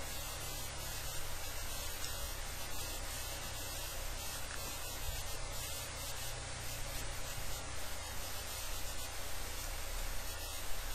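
Steady hiss with a low electrical hum underneath: the recording's own noise floor, with no speech.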